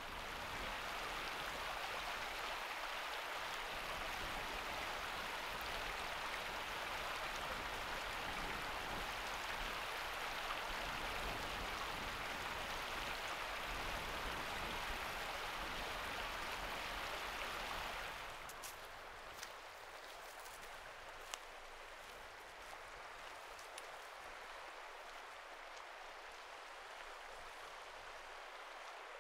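Stream water rushing steadily among boulders. About two-thirds of the way through it drops to a quieter, thinner hiss with a few faint ticks.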